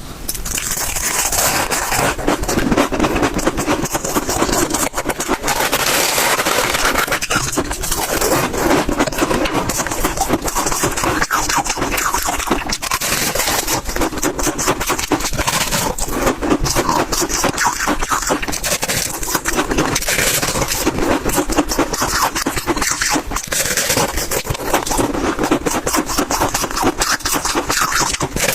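Close-miked crunching of large bites of freezer frost, a steady dense run of crisp crackles and crunches.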